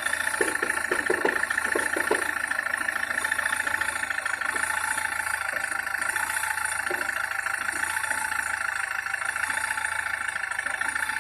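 SsangYong Kyron diesel engine idling steadily, with a constant high-pitched hum over the running. The engine is being run to bring out the knock of a worn dual-mass flywheel.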